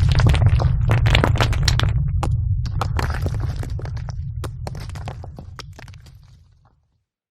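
The tail of an explosion sound effect: a deep rumble with dense crackling and popping, dying away steadily to silence about six and a half seconds in.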